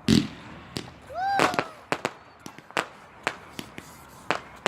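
Fireworks going off: a dozen or so sharp, irregular bangs and cracks, the loudest with a deep thud just at the start.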